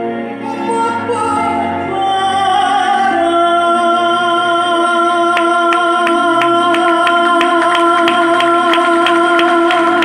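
A woman singing a Filipino ballad into a microphone over backing music, settling about three seconds in onto one long note that she holds to the end. From about five seconds in, a quick even ticking beat of about four strokes a second plays under the held note.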